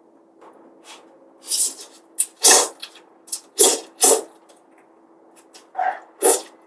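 Instant noodles being slurped in a series of loud, short, hissing slurps, bunched in three groups.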